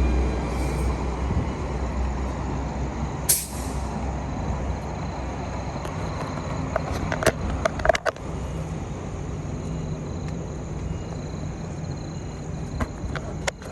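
Brisbane suburban electric passenger train rumbling and slowly fading as it moves away, with a short sharp hiss of air about three seconds in and a few clicks later on.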